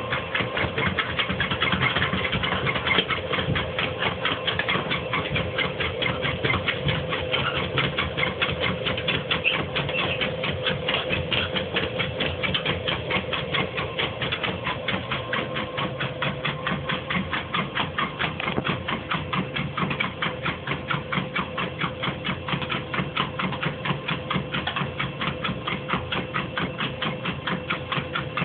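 Dog treadmill running with a pit bull trotting on it: a steady motor whine under a rapid, even clatter, about four ticks a second.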